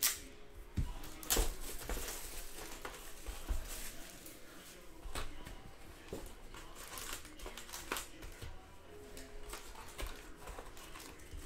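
Plastic shrink wrap crinkling and tearing as it is stripped off a sealed cardboard trading-card box, loudest at the start, then the box flaps opened and foil card packs rustling as they are lifted out, with scattered light clicks and scrapes.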